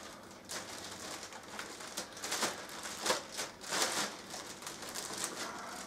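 Clear plastic packaging bag crinkling as it is worked off a pair of perforated metal grain basket plates, in a string of short rustling bursts.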